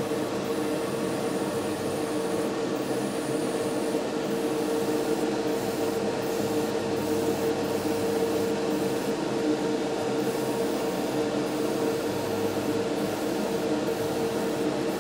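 Airbrush spraying thinned flat clear lacquer: a steady hiss of air and paint over the constant hum of its compressor.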